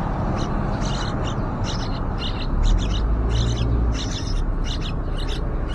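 Yellow-vented bulbuls giving short, high chirps, repeated about two to three times a second, over a steady low rumble.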